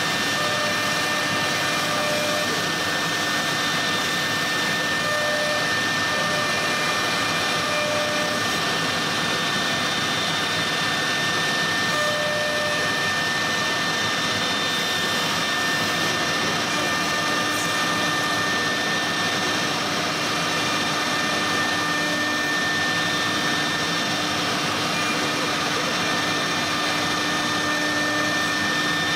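CC-M1325AC3 CNC door router's horizontal spindle running at speed, its bit cutting into the edge of a solid-wood panel: a steady high whine over a constant rushing noise.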